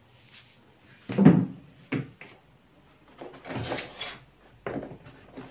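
Knocks and clunks of things being handled in a drone's foam-lined hard-shell carrying case, with a louder thump about a second in and a scraping rustle around four seconds in.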